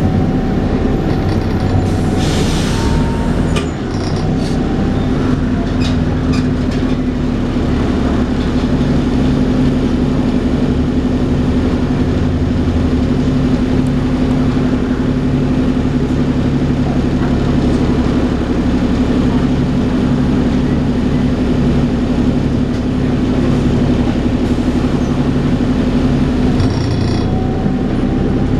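Dennis Trident 2 double-decker bus with an Alexander Enviro 400 body on the move, its engine giving the steady whining 'hoover' note over a low rumble. The rumble shifts a few times, and a brief rattle comes about two seconds in.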